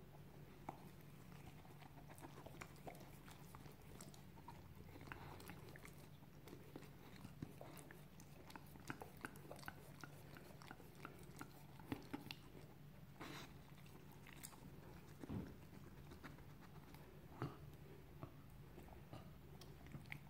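Dog licking and chewing at a rubber Kong food toy to get the food out: quiet, irregular smacks and clicks, with a few louder ones.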